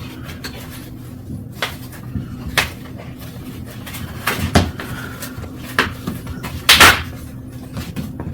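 Scattered handling knocks and clicks of packing material and parts on a boxed electric bike, about five in all, the loudest a brief rustling scrape about seven seconds in.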